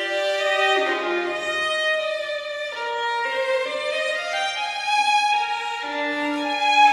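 Background music: a slow melody on violin or other bowed strings, long held notes moving step by step.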